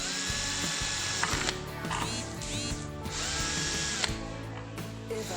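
An electric drill running in a few short bursts, its motor whine rising and then holding steady each time, as it drives a drill-mounted blind-rivet adapter to pull rivets.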